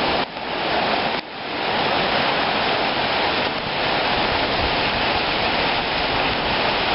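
Very heavy rain pouring down in a storm, a dense steady rush, broken by two brief drops near the start.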